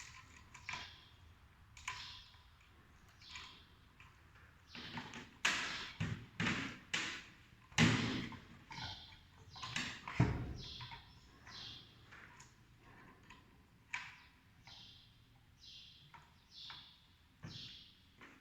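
Irregular knocks, clicks and short high squeaks from hand work on metal pump parts, as a tool is used to tighten them. The knocking is densest and loudest in the middle.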